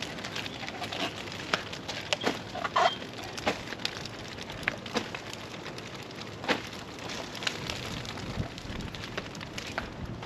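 Scattered crackles and sharp snaps over a steady hiss: fresh banana leaves and banana-stalk sections crackling on the hot stones of an imu pit as they are laid on.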